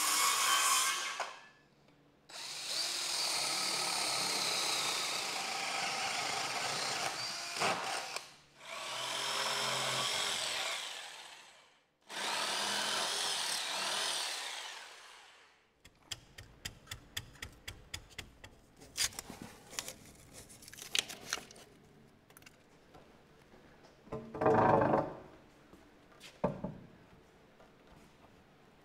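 DeWalt 20V Max cordless circular saw cutting 2x4 lumber in several runs of a few seconds each, the motor whining through each cut and winding down between them. From about halfway there is a string of sharp knocks and taps of boards being handled and fitted, with one louder short burst about three-quarters of the way through.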